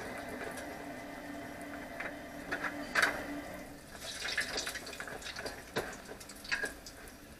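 Balls of mikate dough frying in hot oil: a steady sizzle with scattered crackles and pops, which get busier about two seconds in.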